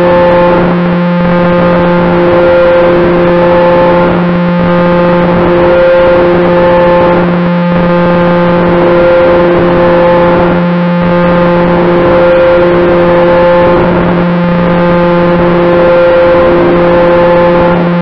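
Propellers of a twin-engine model airplane in steady cruise, a loud even drone with a fixed pitch that swells and fades gently every two seconds or so.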